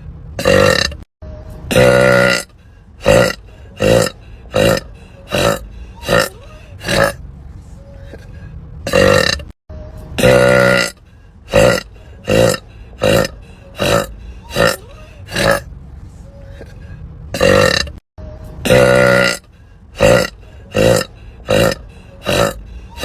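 A woman burping over and over: short, loud burps about one or two a second, with a longer drawn-out belch every few seconds. The same run of burps repeats about every eight and a half seconds, as a loop.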